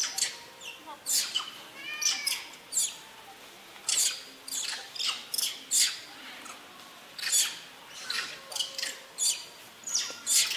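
A troop of long-tailed macaques giving short, high-pitched shrieks and squeals over and over, a few every second, with several animals calling at once. These are alarm calls at a python lying on the ground in front of them.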